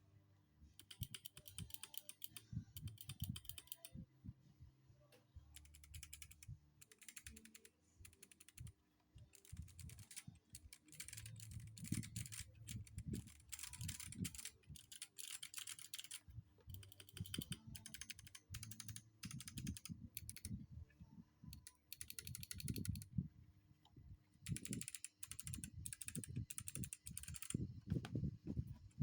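Typing on a mechanical keyboard fitted with Kailh Box Jade clicky switches, each keystroke a sharp click. The keystrokes come in quick runs broken by short pauses.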